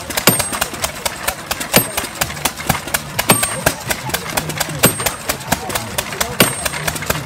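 Small vintage stationary engine running with a fast, even exhaust beat. Over it come five hammer blows, about a second and a half apart, each ringing sharply on metal as a wedge is driven into a log.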